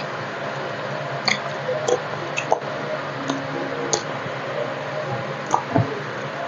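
A person eating soft roti dipped in arbi (taro root) curry, close to a clip-on microphone: wet chewing and lip-smacking, with short sharp clicks scattered irregularly over a steady background hum.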